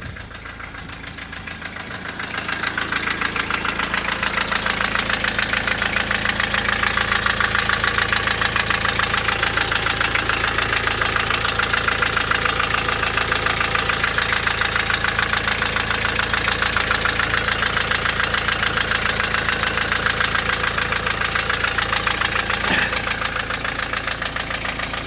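Diesel engine running with a steady rhythmic knock that a fresh valve adjustment has not cured, louder from about two seconds in. The owner suspects a valve shim worn through by the camshaft, or else a piston pin or a broken ring.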